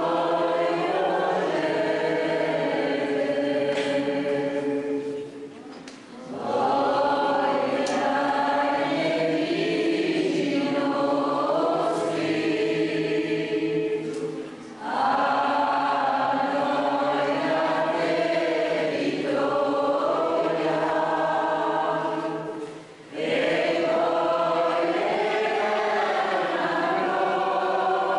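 Church choir of mostly women's voices singing a hymn together, with acoustic guitar accompaniment. The singing comes in long phrases with three short breaks between them.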